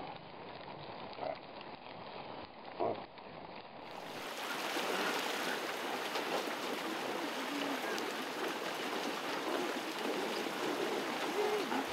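A few short grunts from reindeer in a corral over a low background. About four seconds in, this gives way to a steady rush and splash of water as a herd of reindeer swims across open water.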